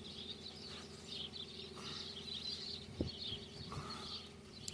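Faint birds chirping on and off over a low steady hum, with a single sharp click about three seconds in.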